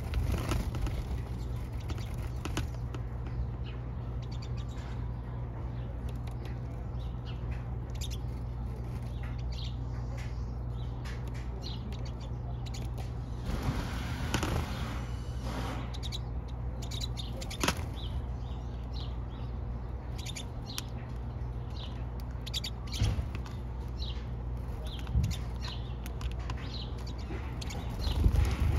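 A flock of pine siskins calling, with many short, high chirps scattered throughout over a steady low rumble. There are a couple of louder, noisier bursts, one around the middle and one near the end.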